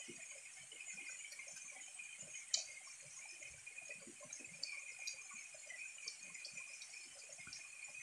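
Stream water running over rocks, with a steady high hum over it. Scattered faint clicks of knives working on green mangoes, one sharper click about two and a half seconds in.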